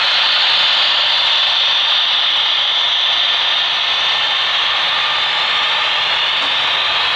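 HO-scale model freight cars rolling past on the layout's track: a steady rolling noise of small metal wheels on rails, with no pauses.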